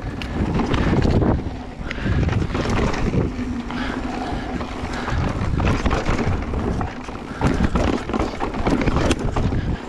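Electric mountain bike ridden fast down a dirt singletrack: wind buffeting the microphone over tyre noise on dirt, with the bike clattering and knocking over bumps throughout.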